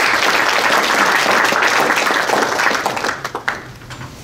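Audience applauding, the clapping dying away about three seconds in with a few last scattered claps.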